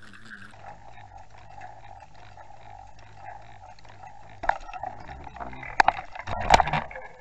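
Boat motor running with a steady hum while trolling, with a series of sharp knocks and clunks in the last few seconds.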